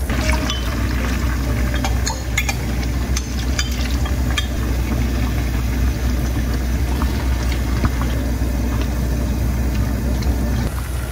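Cooking a spicy braised dish: a liquid sauce bubbling and being stirred in a pan, with several sharp utensil clicks about two to four seconds in, over a steady low hum.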